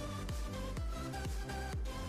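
Background music with a steady electronic beat.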